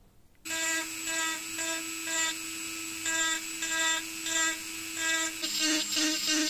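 Small handheld rotary tool with a ball burr cutting dimples into a black wooden handle. A steady high motor whine starts suddenly about half a second in and pulses about twice a second as the bit bites into the wood, the pulses coming faster near the end.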